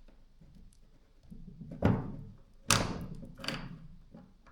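Drill parts being handled and knocked during reassembly of a hammer drill: two sharp knocks a little under a second apart, about two seconds in, then a lighter clack.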